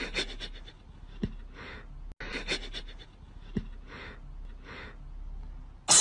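Short, breathy puffs of breath through the nose, about one a second, with three soft low thumps between them.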